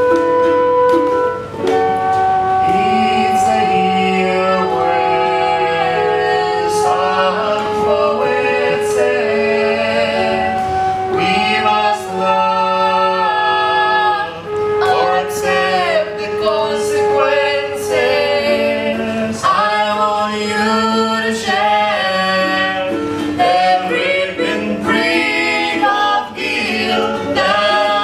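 A mixed group of male and female voices singing a song together in harmony, with ukulele accompaniment.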